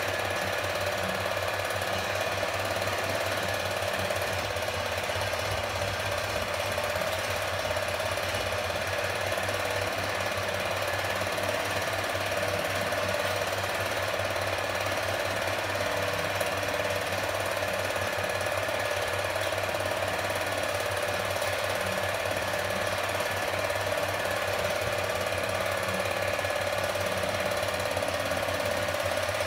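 8mm cine projector running, its film-advance mechanism and shutter making a steady, rapid clatter over a constant hum.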